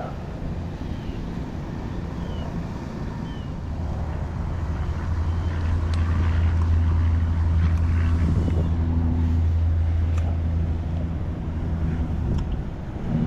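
A motor vehicle's engine running nearby as a steady low hum, growing louder from about four seconds in and easing near the end.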